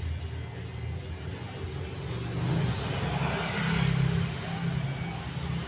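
Electric hair clippers running with a steady hum while trimming hair around the ear, growing louder for a couple of seconds in the middle.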